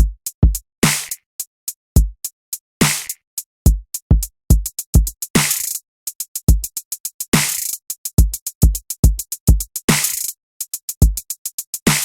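Electronic drum-machine beat programmed in FL Studio, with no melody. Deep booming kick drums, a long noisy snare hit about every two to two and a half seconds, and quick runs of hi-hat ticks between them.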